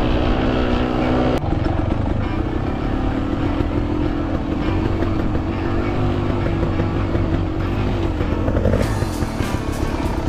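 Enduro motorcycle engine running under load on a steep climb, its pitch wavering as the throttle changes, with an abrupt change in the note about a second and a half in and a spatter of sharp ticks near the end.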